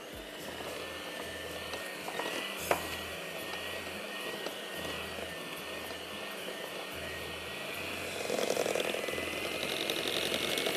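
Electric mixer running steadily as it beats a bowl of frosting, a whir with a thin whine that rises slightly in pitch. A sharp click comes once, about two and a half seconds in, and the mixer gets louder near the end.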